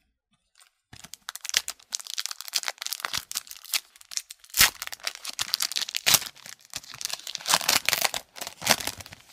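Foil-lined trading-card pack wrapper being torn open and crumpled by hand, a dense crackling with many sharp snaps, starting about a second in.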